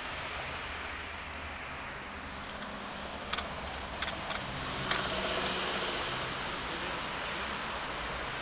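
Steady outdoor hiss with a few sharp clicks about three to five seconds in, then a louder rushing noise with a low hum from about five seconds on.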